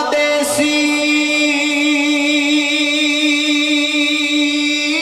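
Male naat reciter holding one long sung note unaccompanied, the pitch wavering slightly.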